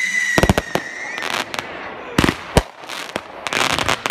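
Fireworks display: a firework whistle sliding slightly downward ends about a second in, followed by a run of sharp bangs from bursting shells, with a quick cluster of crackling reports near the end.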